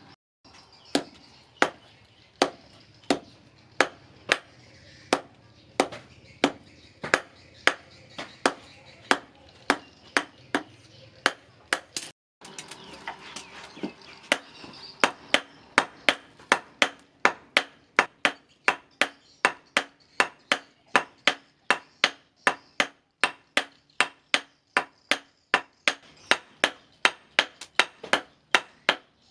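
Hammer blows on a steel chef-knife blank on an anvil during forging, struck in a steady rhythm at about one and a half blows a second. After a short break partway through, the blows come faster, about two a second.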